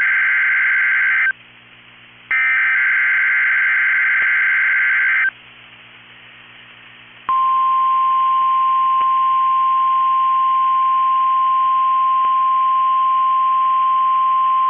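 NOAA Weather Radio Emergency Alert System test. Two bursts of the SAME digital header, a harsh buzzing data screech: one ends about a second in, the next lasts about three seconds. After a pause of faint hiss comes the steady 1050 Hz warning alarm tone, one unbroken high beep.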